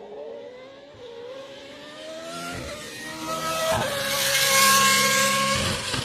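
Auto GP single-seater racing car engine at high revs, its pitch rising through the first couple of seconds and then shifting. It grows much louder toward its peak about four and a half seconds in.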